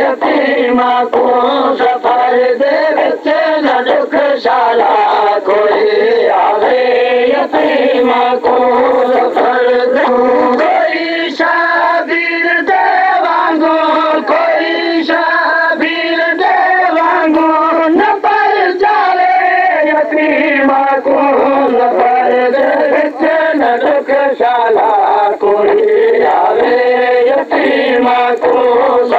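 A noha, a Shia mourning lament, chanted by a male reciter with a group of voices joining in, over a regular beat.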